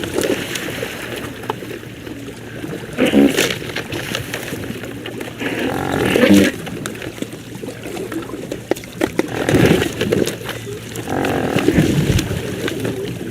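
Great white pelicans giving low, grunting, moo-like calls, several of them a few seconds apart.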